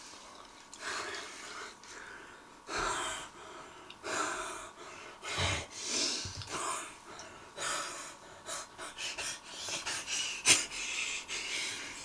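A person breathing heavily in short, hissy gasps. The breaths come about once a second at first and grow quicker near the end.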